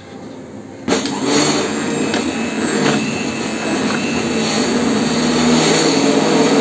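Electric hand blender switched on about a second in and running steadily, its blade churning a pot of boiled lentils (masoor and yellow moong dal) to mash them smooth.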